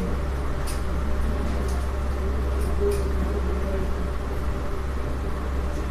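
Steady low hum with a few faint short ticks.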